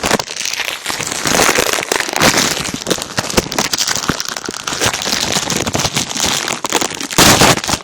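Plastic packaging crinkling and crackling as it is handled right against a phone microphone, with a louder burst of crackling near the end.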